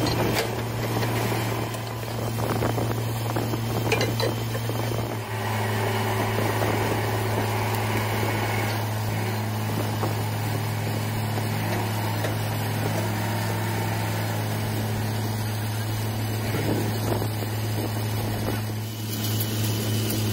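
Truck-mounted borewell drilling rig running at a steady, unbroken drone while drilling.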